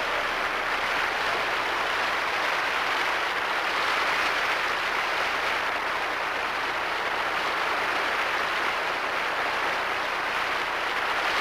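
Audience applauding steadily: dense, even clapping that holds at one level throughout.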